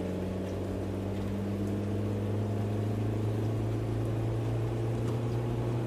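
Steady low hum of a car running, heard from inside the cabin, with a higher tone in it that fades out a little past the middle.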